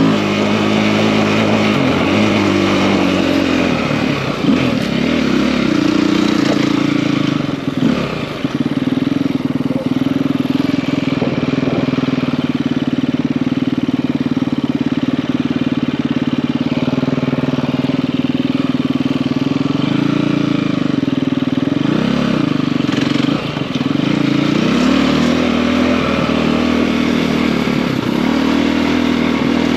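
KTM EXC-F enduro bike's single-cylinder four-stroke engine, bored out to 280 cc, running under way. The engine note rises and falls with the throttle, holds steady through the middle stretch, and drops briefly twice, about 8 and 23 seconds in.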